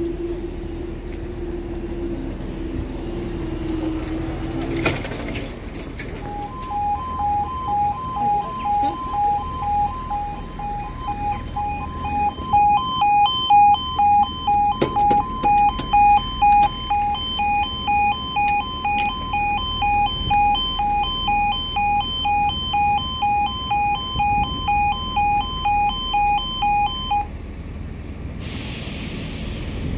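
Level crossing barrier mechanism humming steadily as the booms rise, ending with a knock about five seconds in. About a second later the crossing's electronic warning alarm starts: a loud, pulsing two-tone beeping that sounds for about twenty seconds while the barriers lower, then stops.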